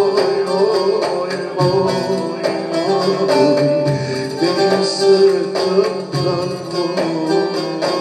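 Turkish folk song music from a small live band: electronic keyboard and plucked strings playing the melody over a steady percussion beat.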